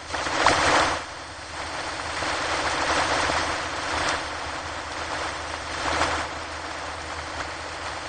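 Ocean surf breaking on a shore: a continuous hissing wash of waves that swells and falls every few seconds, loudest in a surge about half a second in.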